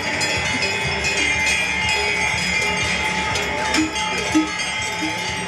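Many large cowbells on a herd of cattle clanging together continuously as the cows move and drink, in an overlapping jangle with frequent sharp clinks.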